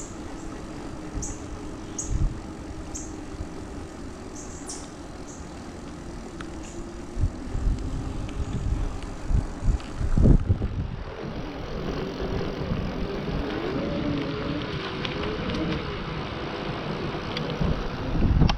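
Riding an e-bike along an asphalt trail: steady hum and rolling noise, with a few short high chirps in the first half. About ten seconds in the sound changes abruptly to louder wind and rolling noise.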